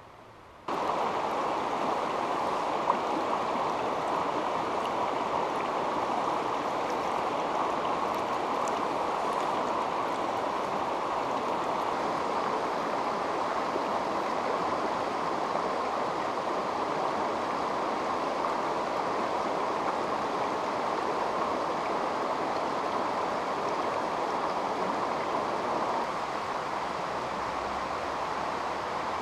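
Shallow, rocky river rushing and burbling over stones and boulders, a steady wash of water noise. It starts suddenly under a second in and turns a little quieter near the end.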